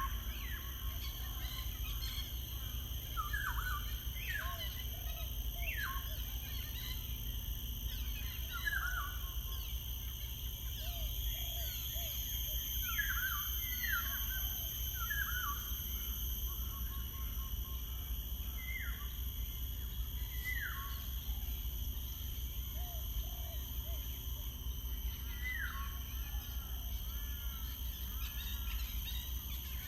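Wild birds calling: short calls that slide down in pitch every second or two, with softer low notes in little runs of three or four, over a steady low rumble.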